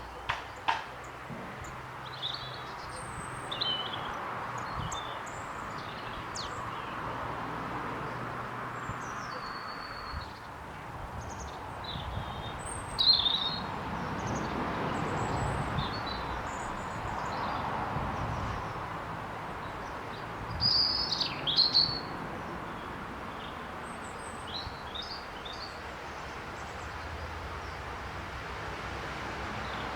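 Small garden birds chirping and calling: many short chirps and whistles, the loudest about a third of the way in and again about two thirds in, over steady background noise. There are two clicks right at the start.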